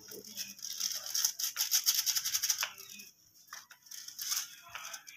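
A small plastic packet of Chinese salt (MSG) being handled and shaken over the pan: a quick dry rattling and crinkling, densest about one to three seconds in, with a few more short rattles near the end.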